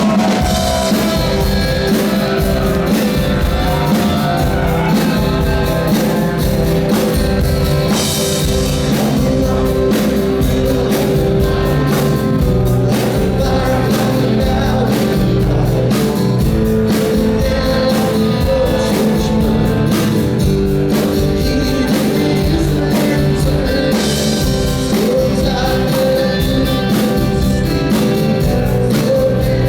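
Rock band playing live, a full amplified mix of drum kit, electric guitars and bass. The drums come in with a steady beat right at the start.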